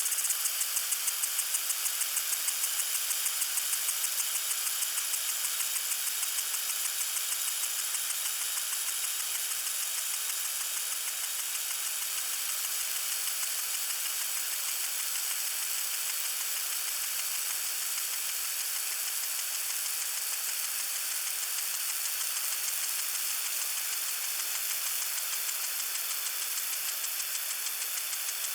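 Lawn sprinkler spraying water: a steady hiss with a fast, regular pulsing, strongest in the first few seconds and then evening out.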